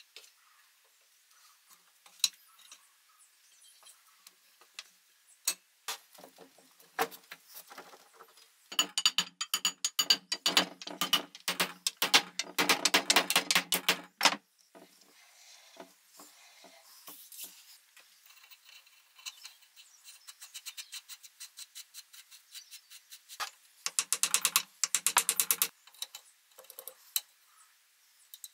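Scattered sharp metallic clicks and knocks, with two bursts of rapid, evenly spaced clicking like a ratchet: a longer one about nine seconds in lasting some five seconds, and a shorter one near the end.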